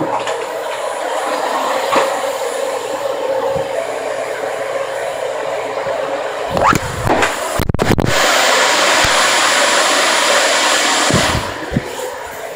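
Upright vacuum cleaner running on carpet, a steady whirring drone, with a few knocks from the machine being pushed about near the middle. It runs louder for a few seconds after that, then drops in level near the end.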